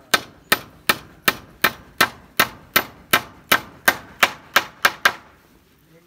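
Hammer driving a nail into a timber frame: about fifteen evenly spaced, ringing blows, a little quicker near the end, stopping about five seconds in.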